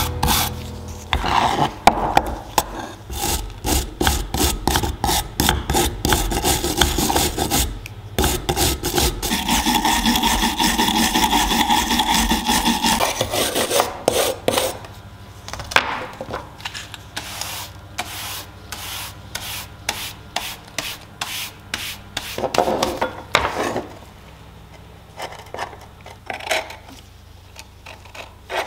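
A small stiff hand brush scrubbing flaking rust off an old iron drawing compass in rapid back-and-forth strokes. The strokes thin out and grow quieter in the last few seconds.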